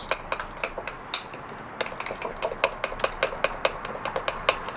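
A utensil stirring a thick mayonnaise sauce in a small ceramic bowl, clicking and tapping against the bowl in quick, irregular strokes, several a second.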